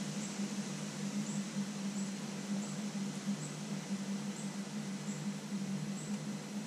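Motorcycle engine idling steadily, with a short high chirp repeating about every two-thirds of a second.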